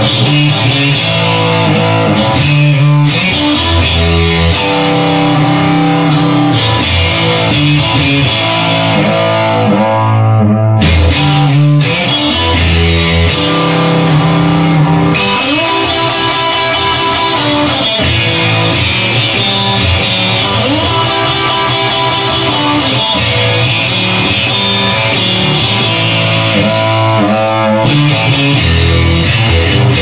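Instrumental stretch of a rock song: electric guitar over bass, with no singing. There is a short break in the sound about ten seconds in.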